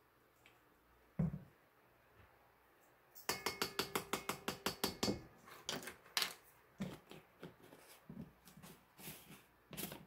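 Handling a salt jar and a plastic measuring spoon: a dull knock about a second in, then a fast run of sharp clicks for nearly two seconds, followed by scattered clicks and taps.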